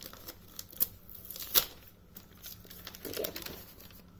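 Plastic mailer bag crinkling and snapping as it is peeled and torn open by hand, with scattered ticks and two sharp snaps about a second and a second and a half in.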